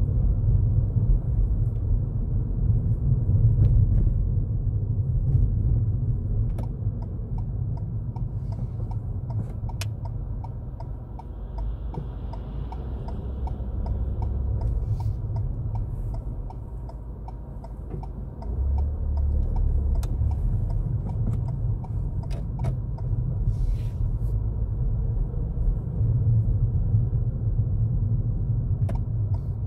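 Low, steady road and engine rumble heard inside a moving Ford Fiesta's cabin, with scattered faint clicks. It eases off for several seconds in the middle and grows louder again a little past halfway.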